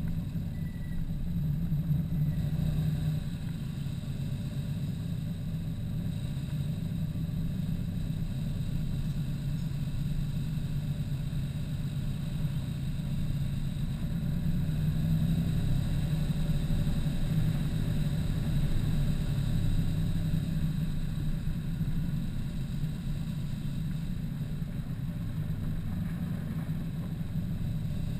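Car engine running at low revs, a steady low rumble that swells a little midway, as the car rolls slowly.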